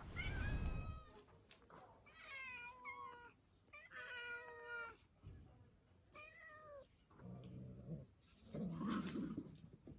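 A cat meowing: several drawn-out meows, each about a second long, with short noisy bursts in between.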